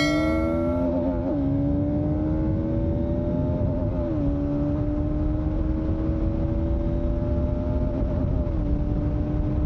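Motorcycle engine running at a steady cruising speed, its pitch holding nearly level with a few brief wavers. A short chime from a subscribe-button animation rings during the first second.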